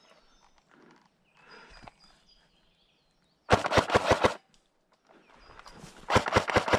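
Airsoft rifle firing on full auto: two rapid bursts of sharp clacking shots, the first about halfway through and the second near the end.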